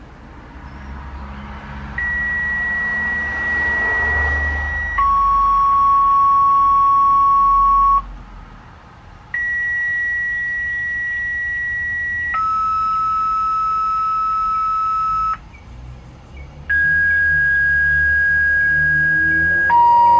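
Two-tone sequential radio activation tones for outdoor warning sirens: three pairs of long steady beeps, a higher tone followed by a lower one, each held about three seconds, with short pauses between the pairs. The tones come over a radio, signalling the sirens to sound for the test.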